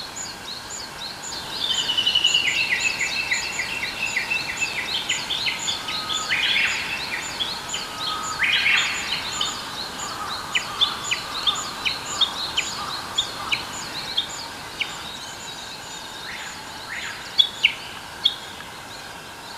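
Several wild birds calling and singing together. A thin high note repeats about three times a second throughout, a louder trilled song starts about two seconds in, and sharp single chirps are scattered through the second half.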